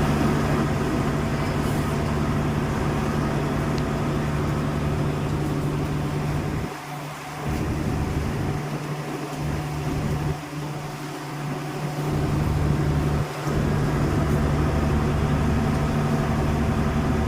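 Tour boat's engine running steadily under way, a low, even drone over the hiss of wind and water; its low drone drops out briefly a few times partway through.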